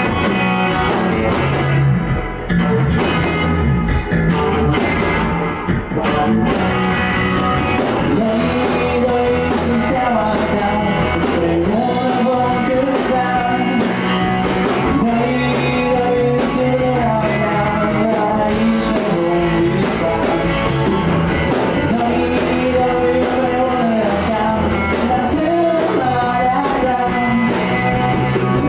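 A rock band playing: electric guitar, bass guitar and drum kit, with a male lead singer coming in about nine seconds in.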